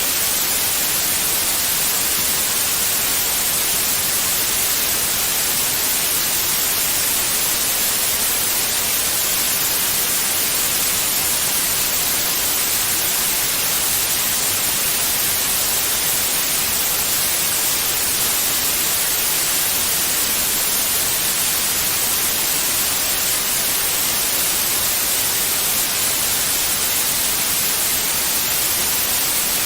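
Steady white noise: an even, unchanging hiss spread across all pitches, strongest in the treble, played as a soothing sleep sound for babies.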